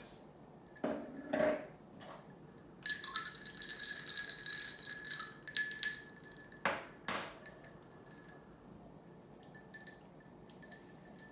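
Drinking glass clinking and ringing, a clear ringing tone holding for a few seconds. Two sharper knocks follow about seven seconds in, and a faint ring lingers after them.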